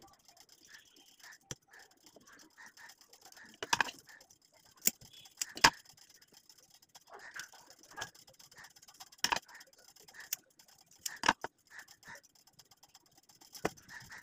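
Scattered sharp clicks and knocks of a small metal LED board and hand tools being handled and set down on a wooden tabletop, one every second or so with faint rustling between.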